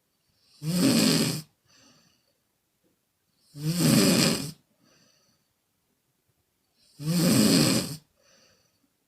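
A woman snoring, blowing through the mouth on the out-breath: three loud, rattling snores about three seconds apart, each followed by a faint breath.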